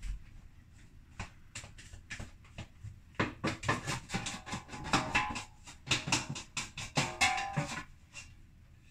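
Stainless steel mixing bowl held upside down and shaken and knocked to free a large risen bread dough: scattered clicks at first, then from about three seconds in a rapid run of knocks with metallic ringing that stops about a second before the end.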